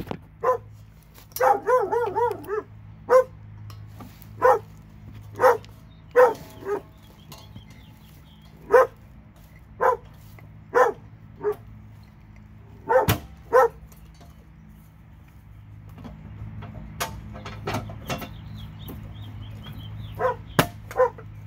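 A dog barking repeatedly, single barks a second or two apart with a few longer gaps, and a short run of quick wavering yips about two seconds in.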